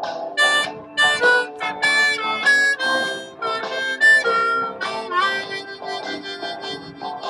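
A harmonica played with both hands cupped around it: a quick run of short notes and chords, with one note bent upward about five seconds in.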